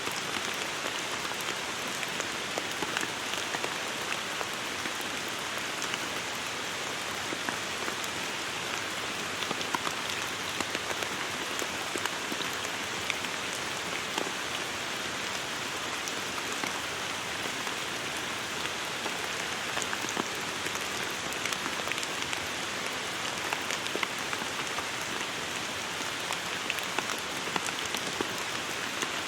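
Steady rain falling on a surface, an even hiss dotted with many individual drop ticks.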